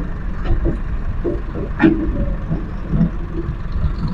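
Tractor engines running steadily, with scattered low knocks and one brief sharp click a little under two seconds in.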